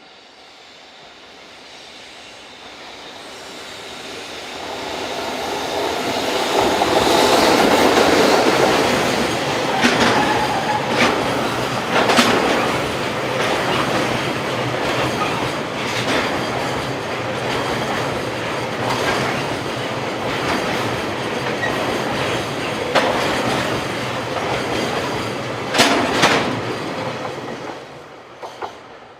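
Freight train passing close by: a rumble that builds over the first several seconds, then a long steady run of wagons going by, with occasional sharp clicks as the wheels cross rail joints, dying away near the end.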